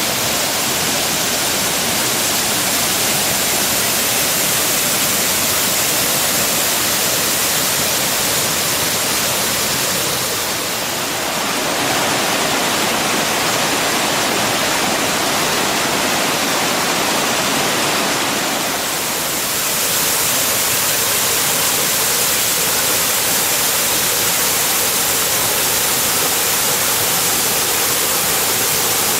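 Waterfall: a loud, steady rush of falling water. For several seconds in the middle, the tone changes, with less hiss at the top and more in the middle range.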